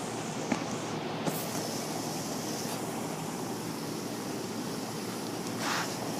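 Steady rushing background noise with a couple of faint clicks in the first second and a short breathy puff near the end.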